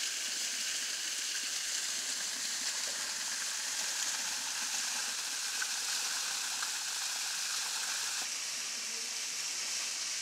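Steady hiss of rainwater falling and running over rock, even throughout, with a slight change in tone about eight seconds in.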